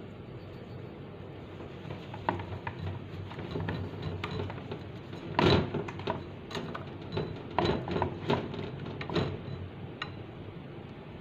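Plastic spatula stirring pancake batter in a ceramic bowl, knocking and scraping against the bowl in a run of irregular clicks, loudest about halfway through.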